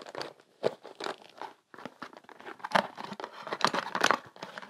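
Handling noise from working on small parts: irregular clicks and knocks with some crinkling.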